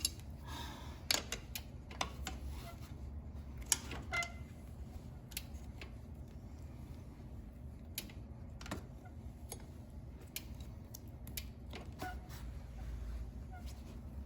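Irregular light clicks and ticks of a bicycle pedal being unscrewed by hand from the crank arm, with a few sharper clicks in the first few seconds.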